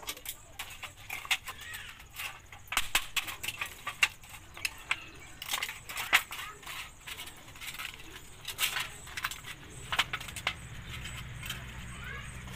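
Irregular metallic clinks, taps and scrapes of a thin scrap piece of galvanized iron sheet being handled and bent by hand, with a few snips from tin snips near the end.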